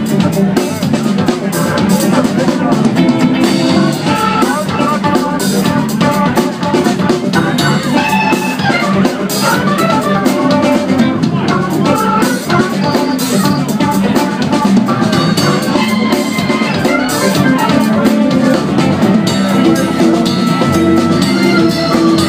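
Live funk band playing an instrumental tune with electric guitar, bass guitar and drum kit, loud and steady throughout.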